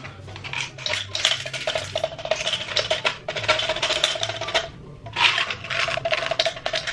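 Tic Tac mints rattling in their plastic box and clattering into a plastic pill bottle as they are poured, a dense run of small hard clicks. It pauses briefly about five seconds in, then starts again.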